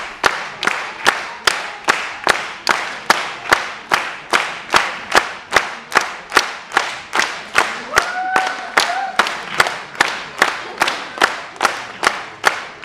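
Audience clapping in unison, a steady beat of a little over two claps a second. A short high note from the crowd rises above it about eight seconds in.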